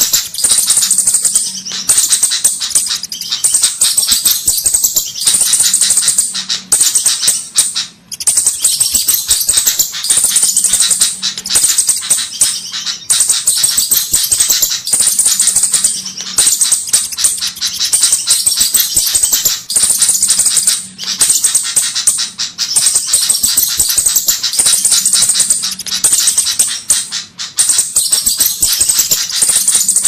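Looped bird-lure (pikat) recording of flowerpecker (cabe-cabean) calls: rapid high-pitched ticking chips in bursts of a second or two, repeating over and over.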